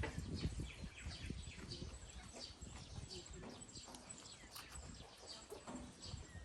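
Small birds chirping rapidly and continuously in short, falling notes, over the low rumble of strong wind on the microphone.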